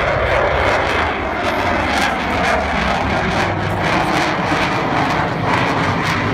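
Twin jet engines of a Boeing F/A-18 Super Hornet flying a low display pass, a loud, steady rushing jet noise.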